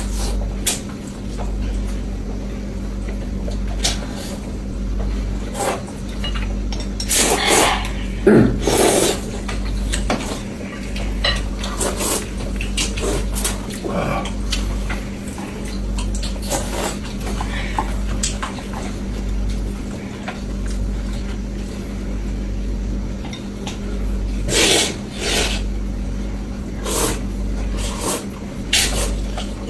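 Noodles being eaten: wet slurps, chewing and mouth smacks, with short clicks of utensils against a bowl. The longer slurps come about seven to nine seconds in and again near twenty-five seconds, over a steady low hum.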